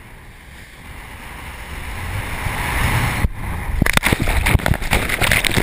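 Sea water rushing past a boat's bow in rough sea, swelling louder as the bow meets a large wave, then spray and water splashing hard over the bow and onto the camera from about four seconds in.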